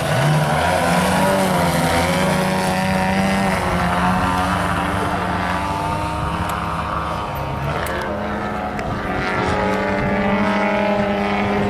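Two large radio-controlled model airplanes flying past, their engines buzzing as two steady tones that bend slightly in pitch. The lower tone drops away about eight seconds in.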